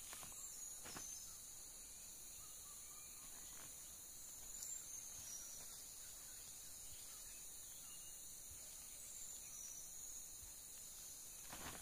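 Faint, steady high-pitched insect drone in the undergrowth, with a few soft rustles and scrapes as hands dig into loose, rotted leaf mould and soil.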